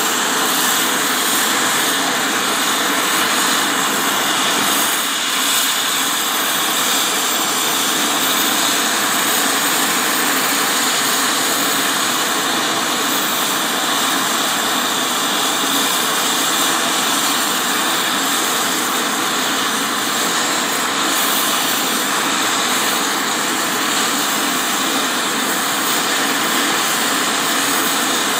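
Twin rear-mounted jet engines of a business jet running steadily at idle on the ground: a loud, even rush with a constant high-pitched whine.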